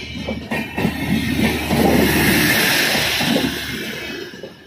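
Indian Railways passenger coaches rushing past close by, wheels clattering and rumbling on the rails under a loud hiss of air. The sound fades as the tail of the train goes by and drops away sharply near the end.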